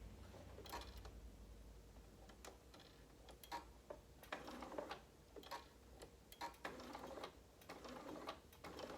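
Sewing machine stitching slowly: a faint motor hum that fades out about halfway, with light, irregular clicks of the needle mechanism and fabric handling.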